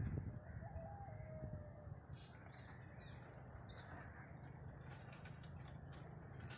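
Faint outdoor ambience: a steady low rumble on the microphone, with a single drawn-out bird call about a second in and faint bird chirps and a few clicks later.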